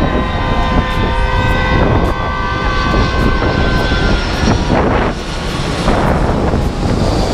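Four-engine Airbus A340 jet airliner on low final approach: a steady engine whine of several high tones, building into a loud rushing noise as it passes overhead about five seconds in.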